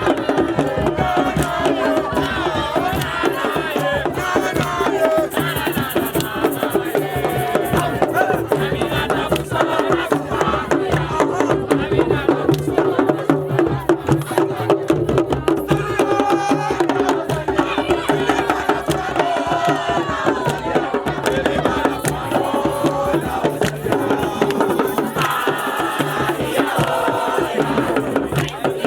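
A crowd of voices singing and chanting together over fast, steady hand percussion.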